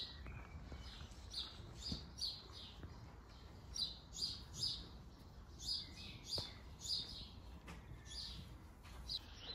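Small birds chirping faintly, short high chirps repeated in runs throughout, with a soft click about six seconds in.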